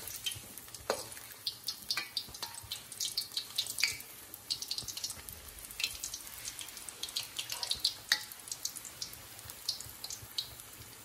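Battered chicken pieces deep-frying in hot oil: a steady bubbling with many quick crackles and pops. The crackles are thickest through the first eight seconds and thin out toward the end, with one sharper pop about eight seconds in.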